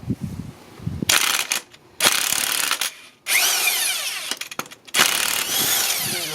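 Power impact wrench with a 17 mm socket run in four bursts, each a second or so long, loosening the harmonic balancer (crankshaft pulley) bolt.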